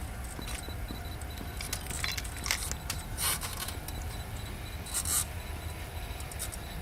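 Steady low background rumble with a few short, scattered clicks and rustles, the clearest about a third of the way in and again just past the middle.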